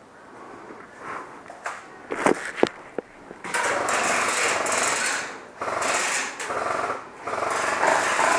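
G&P MK46 airsoft electric light machine gun firing on full auto in about four long bursts, a fast mechanical rattle, starting about three and a half seconds in. A few sharp clicks come before the first burst.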